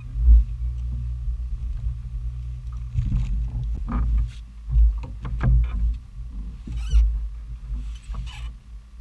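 Irregular knocks and heavy thumps on a fishing boat's deck as a person gets up and moves about on it, over a steady low hum.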